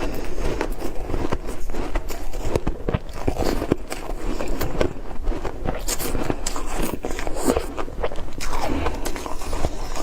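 Ice being bitten and chewed close to the microphone: a continuous run of crisp crunches and crackles.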